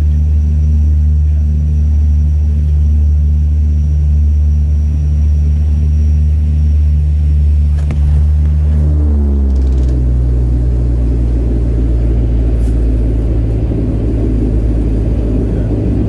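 Airliner cabin noise heard from a window seat while the jet moves on the ground: a loud, steady low engine hum. About nine seconds in, the hum slides lower and a rougher rumble of the rolling aircraft takes over.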